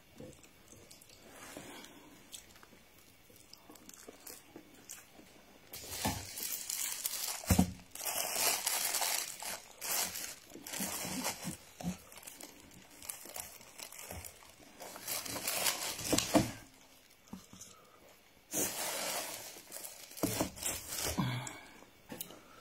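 Crackly rustling and crinkling close to the microphone, in long bursts that start about six seconds in and break off briefly around sixteen seconds before a second burst.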